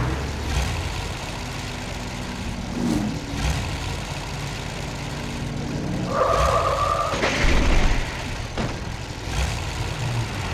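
Recorded car sounds played over loudspeakers: car engines idling at a standstill after a screeching stop, with a brief high tyre squeal about six seconds in.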